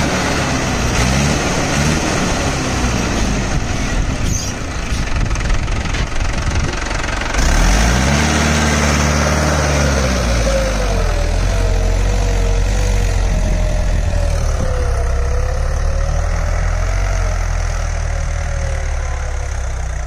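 Mahindra 575 DI XP Plus tractor's four-cylinder diesel engine revving up and down twice, then running steadily as it pulls a tine cultivator through the soil in a high gear, labouring under the load while being run in. A wavering whine sits over the engine in the second half.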